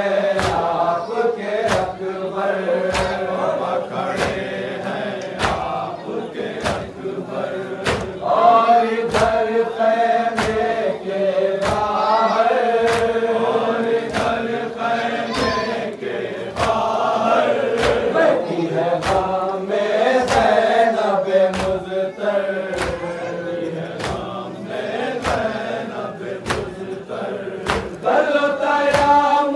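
A crowd of men chanting a Muharram noha together while beating their chests in unison (matam): sharp slaps land about once a second under the sung chant.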